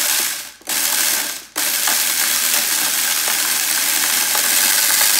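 Countertop blender grinding whole coffee beans: two short pulses, then running steadily from about a second and a half in.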